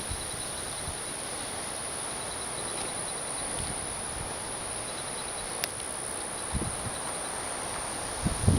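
Outdoor storm ambience: a steady rush of wind through trees with insects chirping in faint, regular pulses. A click comes about five and a half seconds in, and a few low bumps near the end.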